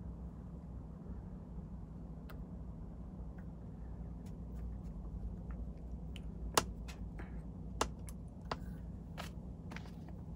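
Small sharp clicks and ticks of hands handling fly-tying tools and materials at a vise, two louder clicks about a second apart past the middle, over a steady low hum.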